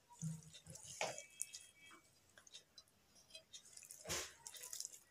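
Hands spreading sliced raw onions over bitter gourd pieces in a steel pot: faint wet rustling and squishing, with small scattered clicks and two slightly louder handfuls, about one second and four seconds in.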